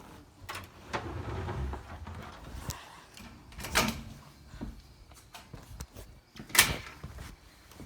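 Scattered knocks and bumps, with a louder one about four seconds in and the sharpest, loudest knock about six and a half seconds in.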